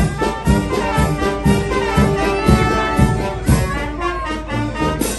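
Street brass band playing a tune outdoors, brass horns over a steady beat of about two strokes a second.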